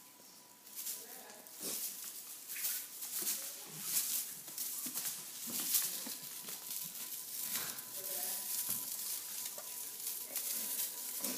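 Crinkling rustle of a shiny foil tinsel wand toy as kittens bat at it and it is dragged across a tiled floor, in quick irregular scratchy bursts.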